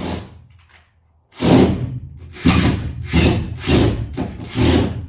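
Power drill run in short bursts, backing out screws; after a brief lull about a second in, it whirs in quick repeated spurts.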